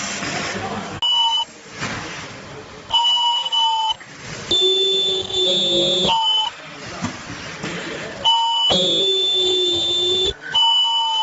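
Ultrasonic welding machine for filter bags giving off a steady high-pitched whine that starts and stops several times, the pitch shifting between stretches.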